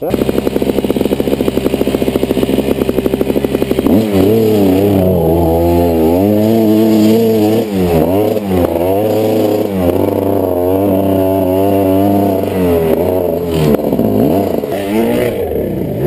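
Dirt bike engine close up, ticking over with rapid, even pulses for about four seconds, then revved up and down repeatedly as the bike is ridden.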